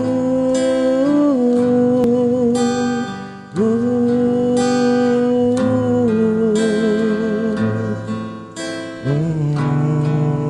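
Acoustic guitar strumming chords under a wordless vocal intro: three long held notes that scoop up at the start and end in vibrato, the last entering a little lower about nine seconds in.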